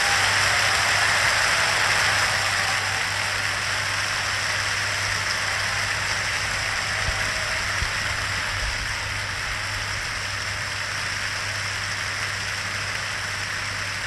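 A large concert-hall audience applauding, the applause easing down after the first couple of seconds. It comes through a 1953 radio broadcast recording with a steady low hum underneath.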